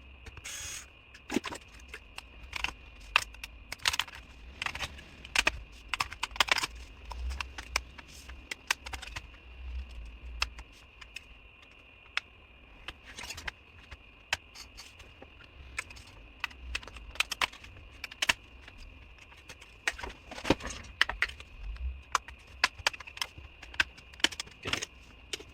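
Screws being taken out of an MSI Cyborg 15 laptop's bottom cover and the cover opened: irregular sharp clicks and taps of the screwdriver, small screws and the plastic case.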